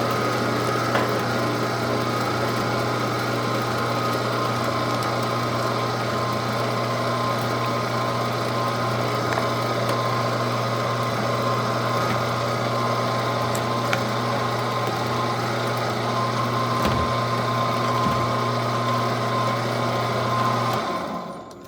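Weston No. 32 commercial-grade electric meat grinder's 1.5 hp motor running steadily with an even hum, then switched off and falling quiet near the end.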